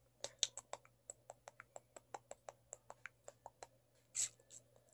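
A rapid run of light, sharp clicks, about six a second for some three and a half seconds, then a brief rustle about four seconds in.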